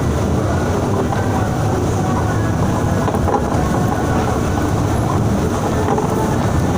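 Transjakarta bus running along the elevated busway: a steady, loud low rumble of engine and road noise.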